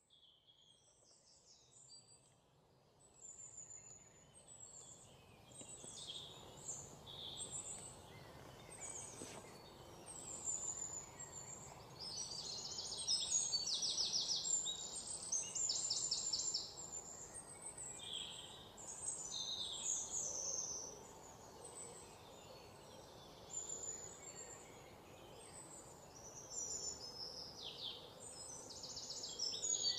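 Small songbirds chirping and trilling, several at once, over a faint steady hiss. The birdsong fades in over the first few seconds, and the loudest rapid trills come around the middle and again near the end.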